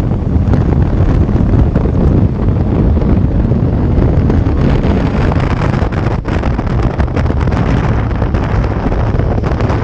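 Heavy wind noise buffeting the camera's microphone on a sportbike riding at speed, with the motorcycle's running blended in underneath. Steady throughout, with no clear engine note.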